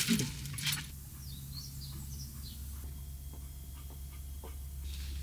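Small bird chirping: a quick run of short high chirps about one to two and a half seconds in, over a low steady hum, with a brief bump at the very start.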